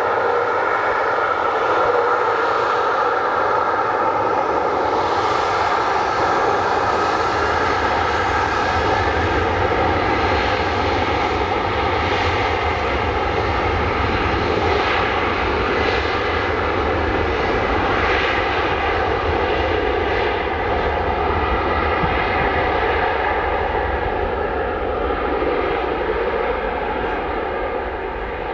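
Embraer 195 jet airliner's twin GE CF34-10E turbofans at low taxi power, a steady jet whine with several held tones over a rushing roar. It fades slightly near the end as the aircraft moves away.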